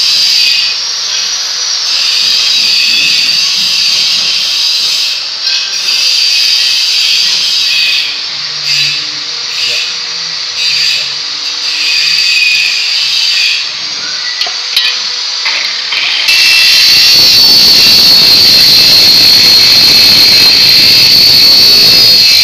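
Ryu RCO180 7-inch (180 mm) abrasive cut-off saw, 900 W, cutting through a steel bar. The cut begins about sixteen seconds in as a loud, steady grinding with a high whine, the loudest part of the stretch. Before it, scattered clanks of the bar and vise being handled over a steady high hiss.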